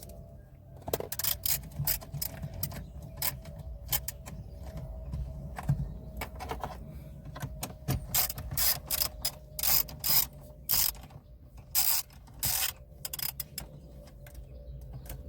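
Mini 3/8-inch ratchet on an extension bar clicking in quick irregular runs as it works 10 mm bolts loose.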